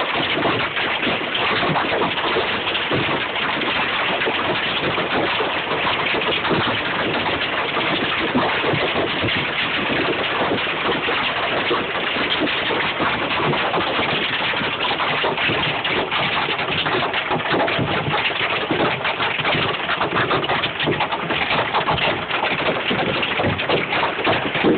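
Steady rain pattering on a vehicle's roof and the canoe loaded in it, heard from inside the vehicle as a dense, even crackle.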